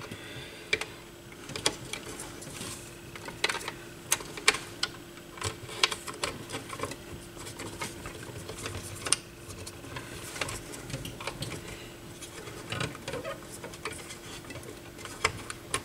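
Irregular small clicks and taps of hands handling a turntable's plastic speed-selector assembly and its wiring, over a faint steady hum.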